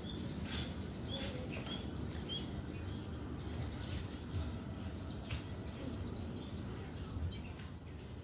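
Orange-headed thrush singing: faint scattered chirps, a short high whistle about three seconds in, then a loud, high whistle sliding down in pitch for most of a second near the end. It is lure song meant to get young male orange-headed thrushes singing.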